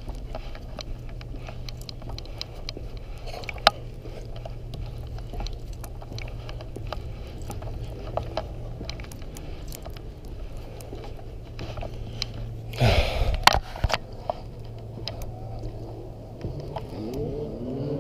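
Hands and boots on the rungs of a rusty steel ladder during a climb: a run of light clicks and knocks over a steady low rumble, with one louder scrape about 13 seconds in.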